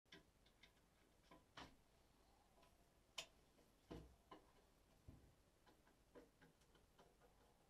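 Faint, scattered clicks and knocks of a hand tool working in the drain of a ceramic washbasin, with one sharper click about three seconds in and a dull knock just after.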